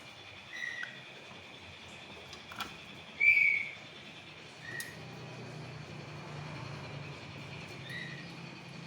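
Oriental magpie-robin giving short clear whistled notes every few seconds: softer, lower ones and two louder, slightly higher ones, about three seconds in and again just after the end.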